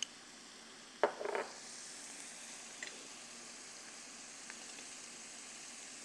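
Carrot sticks and chickpeas sizzling in oil in a stainless steel pot while a wooden spoon stirs them, with a short knock of the spoon about a second in.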